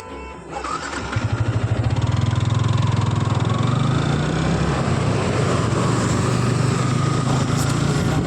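A motor vehicle's engine starts up about a second in and then runs steadily with a low, fast-pulsing note, over a steady hiss.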